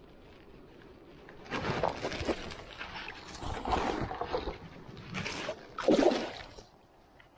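A salmon splashing in shallow river water at the bank as it is held and unhooked by hand. The splashing comes in several bursts, the loudest about six seconds in as the fish kicks free.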